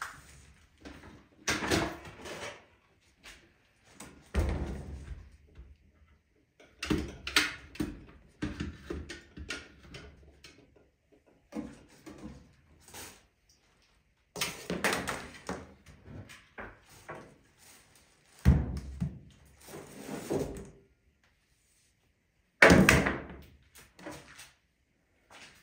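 Household items, a blender and a steam iron among them, being set down and moved about on a tiled kitchen counter: a series of irregular knocks, clatters and thuds, the loudest near the end.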